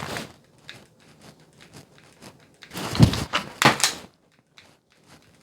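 Handling noise from a pistol during dry-fire practice: faint scattered clicks and ticks, then two sharp knocks about three seconds in and again half a second later.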